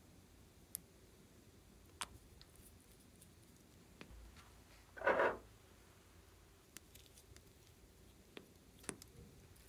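Faint handling of small plastic cosmetic containers: a few light clicks, and one short, louder rustle about halfway through.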